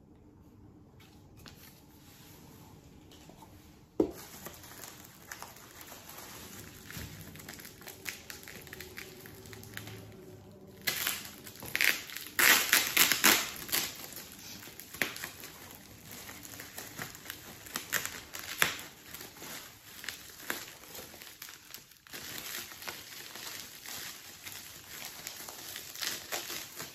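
Plastic bubble wrap crinkling and crackling as a wine bottle is unwrapped from it. Quiet handling at first with one sharp tap, then the crinkling sets in, loudest near the middle and going on in smaller rustles after.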